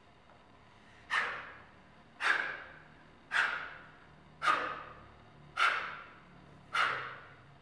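Six sharp, breathy bursts at an even pace of about one a second, each cutting in suddenly and fading within half a second.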